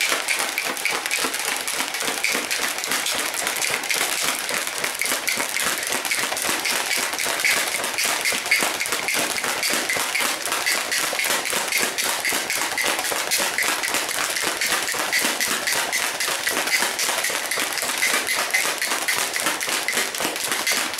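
Plastic protein shaker bottle holding whey powder, creatine and water, shaken hard and fast: a rapid, even rhythm of knocks and rattles that cuts off at the end.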